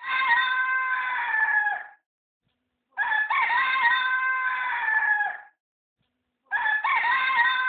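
Rooster crowing three times, each crow a long held call of about two seconds, with a second of silence between them.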